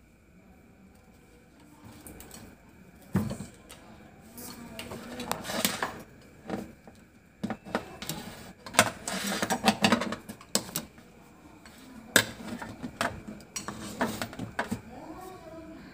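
Handling noise on a worktable: irregular clicks, taps and clattering of small hard objects as a circuit board and multimeter test leads are moved about, with the sharpest knocks about three seconds in and around twelve seconds in, and a busy run of clatter around nine to ten seconds in.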